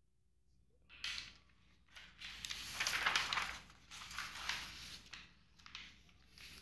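Sheets of paper rustling and sliding against each other as they are moved by hand. A few scrapes start about a second in, are loudest in the middle and die away near the end.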